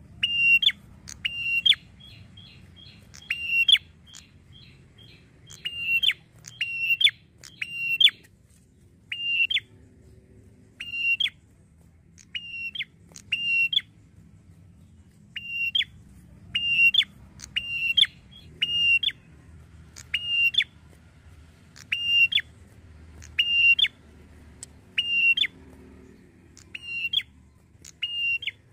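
Red-headed tailorbird (prenjak kepala merah) calling: a loud, sharp note repeated over and over, often in pairs, about one or two a second with short pauses between runs. In the first few seconds a faint, fast series of thinner, higher notes runs beneath.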